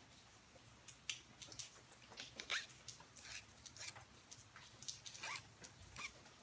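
Faint, irregular rasping strokes of a small copper notching punch being rubbed across a metal hand file, about two or three short scrapes a second. The punch is being filed to take off a sloping shoulder that has formed on its tip and bring it back flat.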